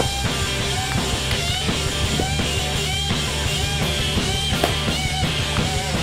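Loud rock music with drums and guitar and a steady beat.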